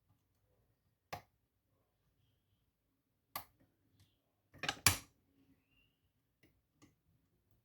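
Sharp metallic clicks of lock picks working in a lock: a single click about a second in, another at about three and a half seconds, a quick cluster of louder clicks just before five seconds, then two faint ticks.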